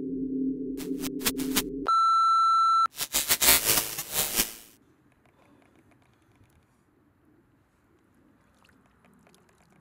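Edited sound effects: a low electronic drone with a few sharp clicks, cut off by a steady high beep lasting about a second, then a burst of crackling digital static that ends about five seconds in. After that only a faint hiss with light ticks remains.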